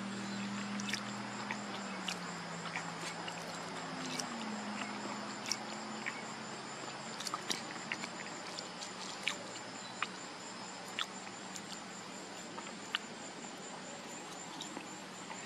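Insects trilling steadily with a high, pulsing buzz, with scattered short sharp clicks throughout. A low hum, shifting in pitch, sounds underneath for the first four seconds or so and then fades.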